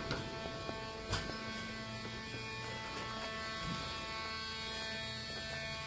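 Dremel rotary tool running steadily at one speed, an even motor whine.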